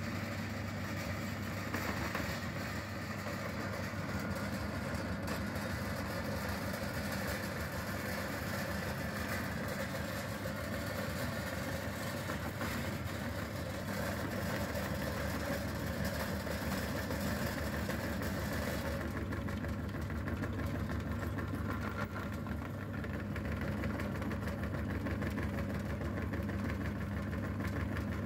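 Belt-driven meat grinder running steadily, a low hum with a gritty grinding noise as its auger crushes chalk into powder that is forced out through the grinder plate. The hiss of the grinding thins out about two-thirds of the way through.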